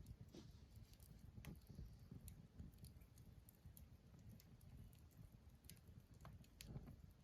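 Near silence: a faint low rumble with scattered soft clicks and taps.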